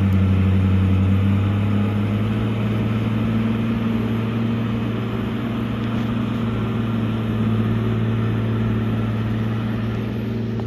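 Case motor grader's diesel engine running steadily under load as the grader cuts into earth, a low, even hum.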